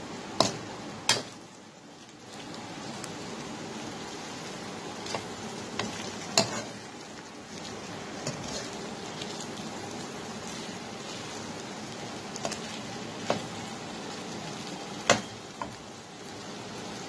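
Minced meat frying over high heat in a dark frying pan: a steady sizzle, with a metal spoon clinking and scraping against the pan every few seconds as the mince is stirred and browned.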